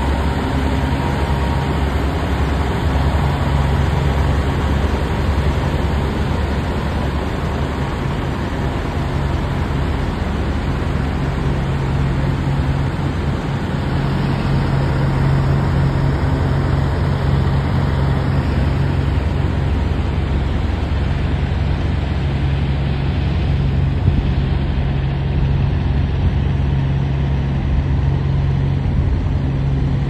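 Diesel engines of parked semi trucks idling, a loud, steady low rumble that holds one pitch with no revving.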